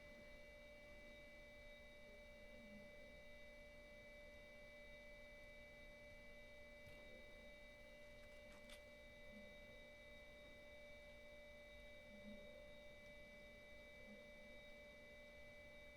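Near silence: faint steady electronic whine made of several high and mid pitches held level, with two faint ticks in the middle.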